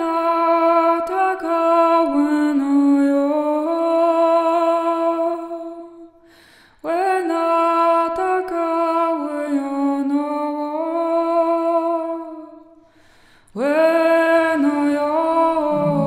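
A woman's voice singing long, slowly gliding held tones in three breath-long phrases, each broken off by a short pause. A lower steady tone joins under the voice near the end.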